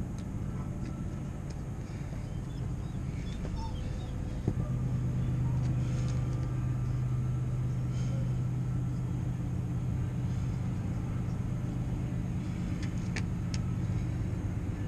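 A motor running with a steady low hum and rumble, growing louder about four and a half seconds in.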